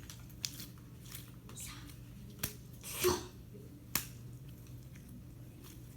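Slime being squished and stretched by hand, giving a few sharp clicks and pops, with a longer, louder squish about three seconds in.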